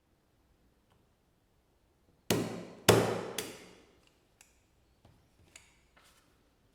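SDI One Touch stapler pressed down through a 30-sheet stack: three loud clacks about half a second apart, then a few lighter clicks as the stapler and paper are handled.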